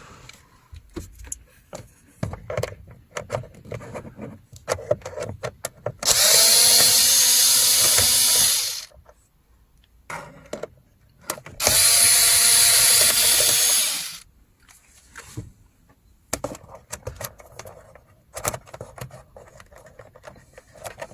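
Cordless screwdriver running twice, each time for about two and a half seconds, backing out the Torx T25 screws that hold a car's instrument cluster in place. Light clicks and knocks of handling come in between.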